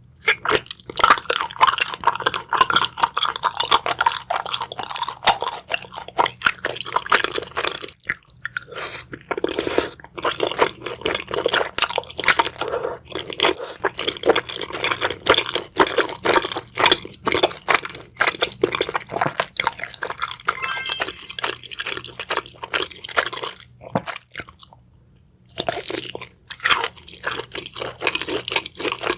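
Close-miked ASMR eating of seafood: loud, dense crunching and chewing, with short pauses twice.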